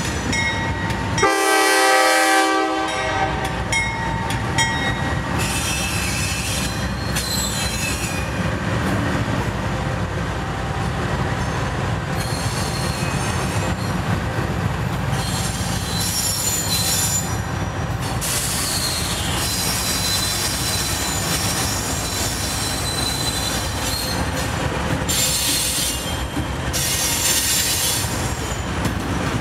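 Norfolk Southern freight train passing: one horn blast about a second in, lasting about a second and a half, then diesel locomotives and a long string of covered hopper cars rolling by, the wheels on the rails giving high squeals now and then.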